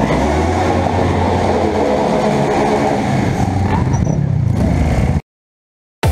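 Motorcycle engines running during a group ride, heard from the seat of a green Kawasaki motorcycle; the sound cuts off suddenly about five seconds in.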